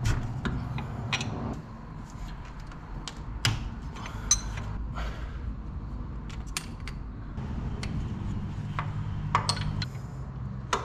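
Wrench clinking and clicking on the 5/8 in. nuts of a turbo oil feed line, with scattered metal taps as the line is handled, over a steady low hum.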